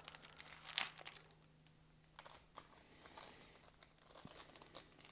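Baseball card pack and cards handled close to the microphone: crinkling and rustling in short scattered bursts, loudest near the start, over a faint steady low hum.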